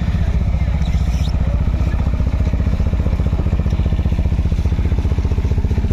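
ATV (quad bike) engine running steadily close by, an even rapid pulsing with no revving.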